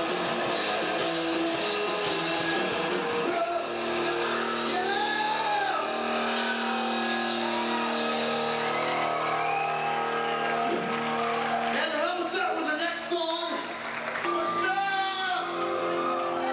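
Rock band playing live, guitars holding long chords with a singer's voice rising and falling over them.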